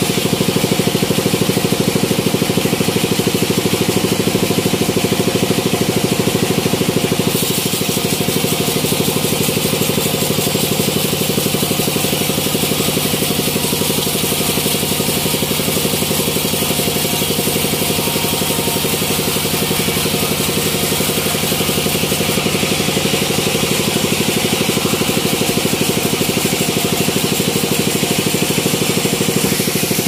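Horizontal band sawmill running steadily as its band blade saws through a teak log. The hiss of the cut brightens about seven seconds in and eases again a few seconds before the end.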